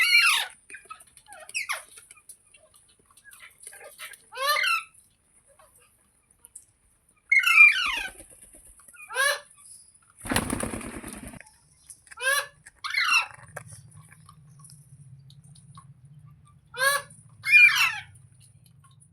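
Green parrot, a rose-ringed parakeet, giving short harsh screeching calls, about nine of them, several in quick pairs. About ten seconds in there is a one-second rasping noise, and a faint low hum in the last few seconds.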